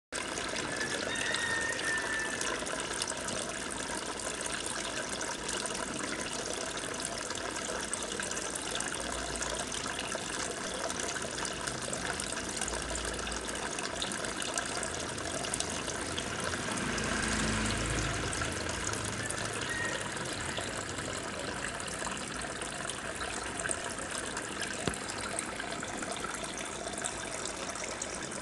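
Aquarium water circulating with a steady rushing trickle, with a few brief low rumbles midway.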